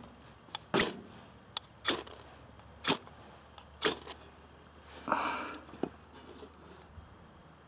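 Ferro rod being scraped with the spine of a knife to throw sparks: four short, sharp rasps about a second apart, then a longer, rougher rasp about five seconds in.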